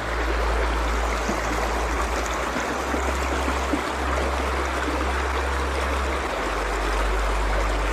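A creek's running water, a continuous even rush with a steady low rumble underneath.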